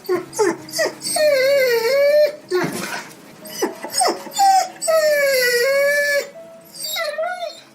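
A dog whining and whimpering in a string of high, wavering cries, some short and some long and drawn out, with a rougher yelp about two and a half seconds in. The crying is presented as a dog crying from hunger.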